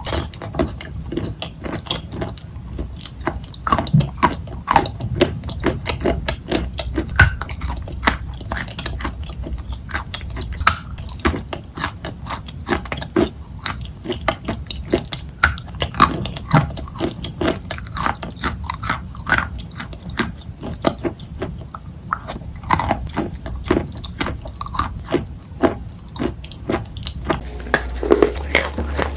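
Biting and chewing of wet chalk and clay paste close to the microphone: a rapid, continuous run of short wet mouth clicks and squishes.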